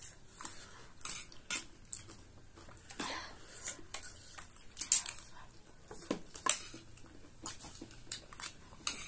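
Small metal spoons clinking and scraping on ceramic plates in irregular sharp clicks, with the loudest click about five seconds in.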